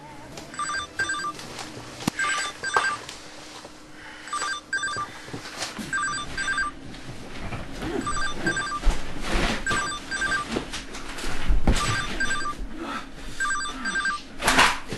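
Electronic telephone ringer ringing over and over, each ring a quick double warble, repeating about every two seconds. Knocks and rustling build up in the last few seconds.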